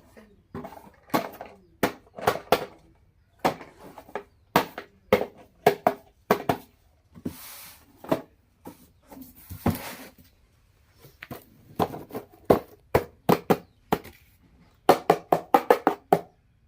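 Plastic toys and their packaging being handled during unboxing: irregular sharp clicks and knocks, with a brief rustle about seven and a half seconds in and another about ten seconds in, and a quick run of about eight clicks near the end.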